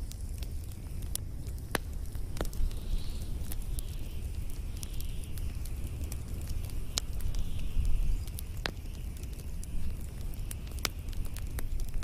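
Log and pine-cone fire burning, crackling with frequent sharp pops over a steady low rumble of flames. A faint wavering hiss comes and goes through the middle.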